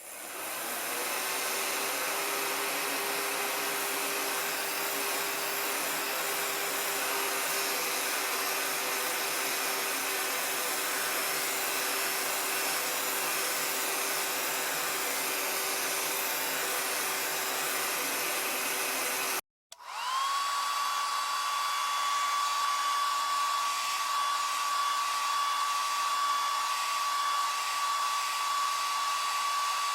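Hair dryer running: its motor spins up and settles into a steady blowing hum, cuts off abruptly about two-thirds of the way in, then starts again and runs on with a higher-pitched whine.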